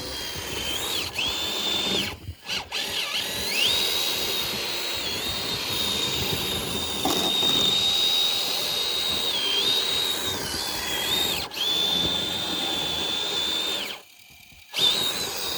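Electric motor and gears of a radio-controlled crawler truck running with a steady high-pitched whine, dipping briefly now and then as the throttle changes. The whine stops for a moment about two seconds in and again near the end.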